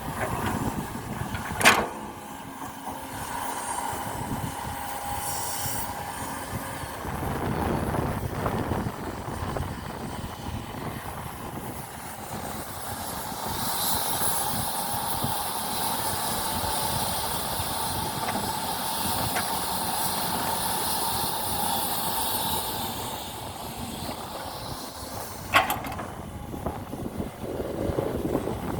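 Radio-controlled model excavator working, its electric motors and hydraulic pump whining steadily, the pitch shifting as it moves. A sharp click comes about two seconds in and another near the end.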